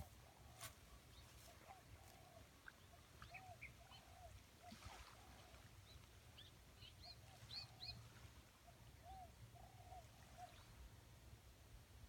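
Faint dawn chorus of birds. One bird repeats short, low, arched call notes all through, while others add scattered high chirps in bursts, over a steady low rumble.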